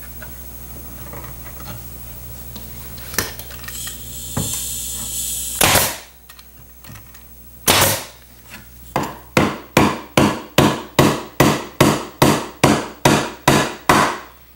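Staple gun firing twice, a couple of seconds apart, fixing a wooden corner block into a chair frame, then a hammer driving nails through a metal spring clip in a quick even run of about eighteen blows, roughly three a second.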